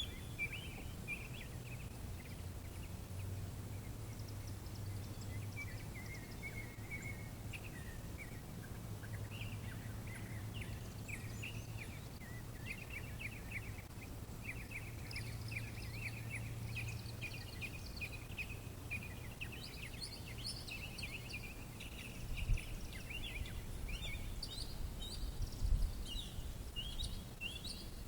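Quiet outdoor background of small birds chirping and twittering over a low steady hum, with a couple of low bumps near the end. No siren is sounding.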